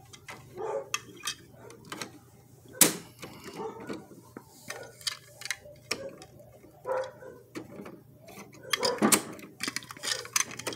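Irregular plastic clicks and clatter from a toy side-loader garbage truck being handled, its blue bin and red lift arm moved and knocked against the body, with two louder knocks, about a quarter of the way in and near the end.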